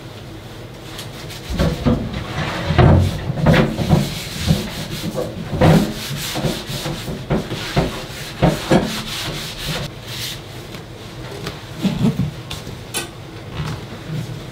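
A wooden cutting board being scrubbed in a stainless-steel kitchen sink: a run of rubbing strokes with occasional knocks against the sink.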